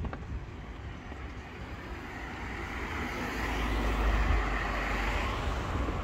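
A road vehicle driving past on the street: its engine and tyre noise grows, is loudest with a deep rumble about four seconds in, then fades away.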